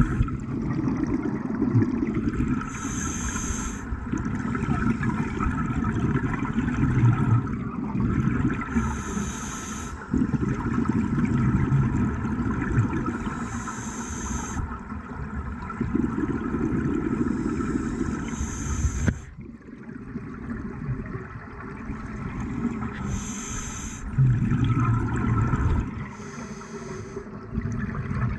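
Scuba diver breathing through a regulator underwater: a short, high hiss of inhaled air about every five seconds, six times, each followed by a longer low rush of exhaled bubbles.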